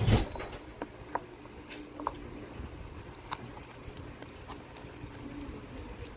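Slime being squished and stretched by hand, giving sticky crackling pops. There is a louder squelch right at the start, then scattered small clicks and pops.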